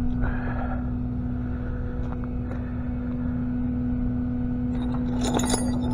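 Tow truck engine running with a steady low hum throughout, with a few light knocks about five seconds in.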